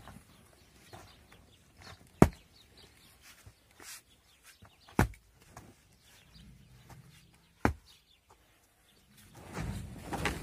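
Pickaxe blows into hard, dry packed earth around the base of a wooden pole: three sharp strikes a few seconds apart, digging the pole loose. Near the end comes a louder stretch of scraping and shuffling.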